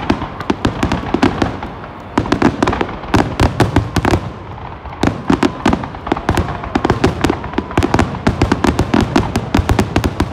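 Aerial fireworks shells bursting in rapid succession: many sharp bangs and crackles close together, in dense runs with brief lulls about two seconds in and again around five seconds in.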